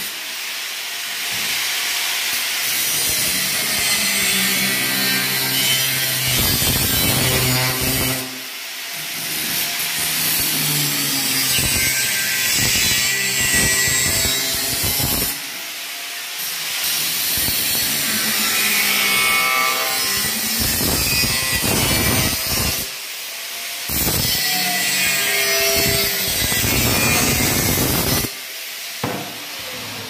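Handheld angle grinder cutting into a perforated steel cable tray, running in long stretches broken by four short pauses. The motor's whine shifts in pitch as the disc bites into the metal.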